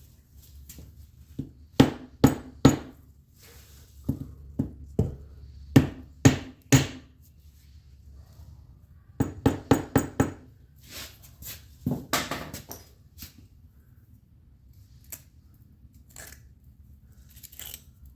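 Hand tools and metal transaxle parts knocking and clinking in irregular clusters of sharp taps: three close together about two seconds in, several more around five to seven seconds, and a quick run of about five near the middle, thinning out toward the end.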